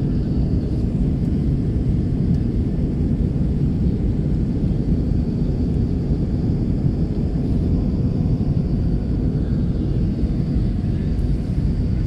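Steady low roar of an Airbus A320's engines and rushing airflow, heard from inside the passenger cabin in flight.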